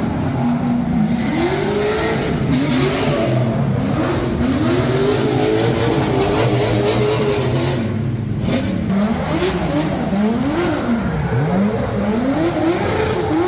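Drift cars' engines revving on track during practice, the pitch climbing and dropping again and again as the drivers work the throttle.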